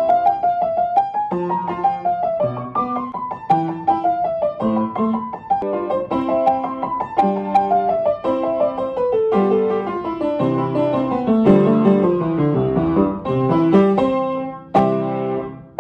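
Upright piano played: a flowing melody over chords, with a long descending run about two-thirds through. Near the end a loud held chord comes in suddenly.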